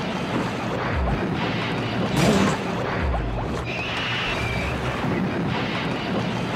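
Water churning and splashing around train carriages plunging into the water, with one louder crashing splash about two seconds in.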